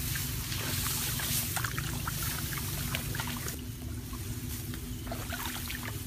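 Water splashing and trickling in small irregular bursts, over a steady low hum.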